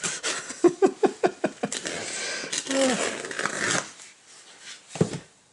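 Rustling and scraping of a plastic-bagged, boarded comic book and a cardboard mailer being handled, with many small clicks. A single thump about five seconds in as the cardboard mailer is set down on the table.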